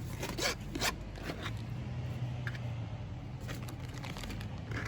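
Light crinkling and rustling of food bags and aluminium foil as ingredients are tipped into a foil packet, with a few short crackles in the first second over a steady low hum.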